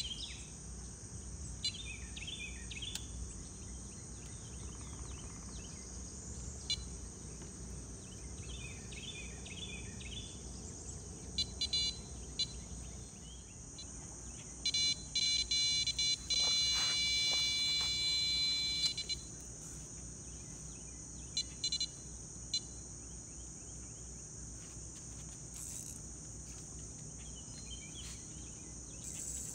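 Steady high drone of insects, with short chirping calls now and then. About halfway through, a carp rod's electronic bite alarm sounds a loud continuous tone for about four seconds, signalling a take.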